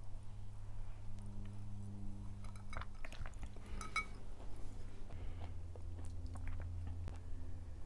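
Close-miked chewing of food, with small wet clicks, and a utensil clinking against a dish or glass about four seconds in, over a steady low hum.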